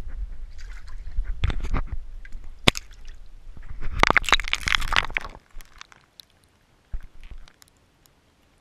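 Water sloshing and gurgling in an ice-fishing hole, heard through an underwater camera's housing, stirred up by a bass at the hole. Scattered knocks and bumps, then a louder burst of splashing about four seconds in that stops suddenly, leaving it mostly quiet.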